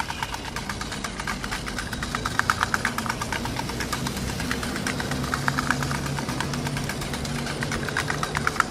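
An engine running with a rapid, even knocking, over a steady low hum.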